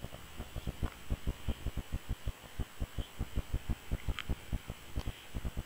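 A sharp click, then rapid, irregular low thumps, about six or seven a second, over a steady hiss with a faint high-pitched whine.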